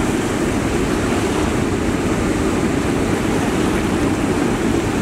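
Steady, loud rush of river water pouring over a weir spillway and churning in the turbulent pool below it.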